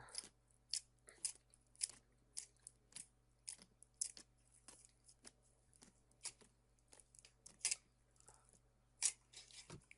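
Slime being squeezed and poked by hand, giving irregular short crackling clicks and pops, a few each second.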